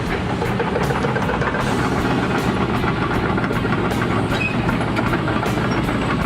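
Link-Belt 210 excavator's diesel engine running steadily under work, with scattered short clicks and clanks over it.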